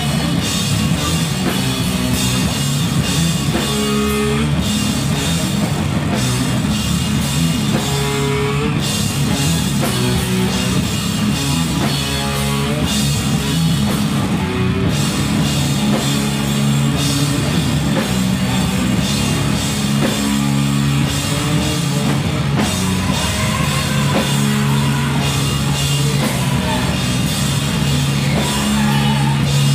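Stoner rock band playing live: distorted electric guitars over a pounding drum kit, loud and unbroken.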